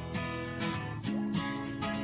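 Background music: strummed acoustic guitar in a light folk style with a steady beat.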